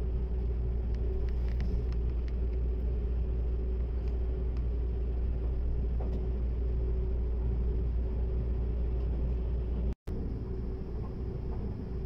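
Seibu Laview limited-express train running, heard from inside the passenger cabin: a steady low rumble with a steady hum over it. The sound cuts out for an instant about ten seconds in.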